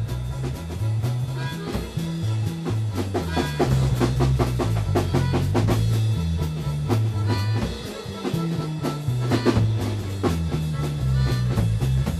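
Instrumental funk-rock jam: an electric bass plays a busy, moving riff under a drum kit keeping a steady groove with frequent hits.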